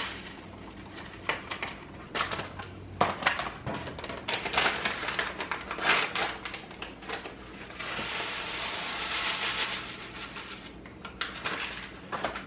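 Kitchen handling noise: a run of light clicks and crinkling, then a steady hiss lasting about two and a half seconds, then a few more clicks.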